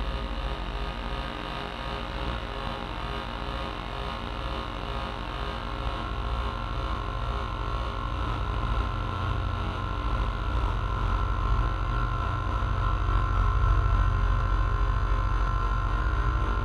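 Modular synthesizer playing electronic drone music: a deep low drone under steady sine-like tones. A band of higher held tones swells louder about halfway through.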